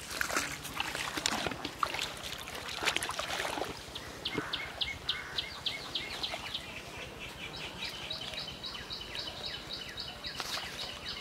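Water splashing and sloshing as a person wades through a pond thick with water hyacinth. From about four seconds in, a bird calls in a long, rapid series of short high notes, about four or five a second.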